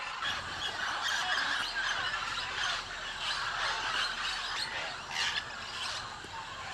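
A large flock of macaws calling at once: a dense, continuous chorus of harsh, overlapping squawks and screeches.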